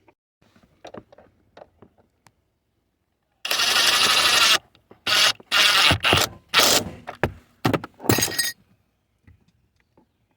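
Power tool running down the door check bolt after it has been started by hand: one run of about a second, then about five shorter bursts. Faint clicks of parts being handled come first.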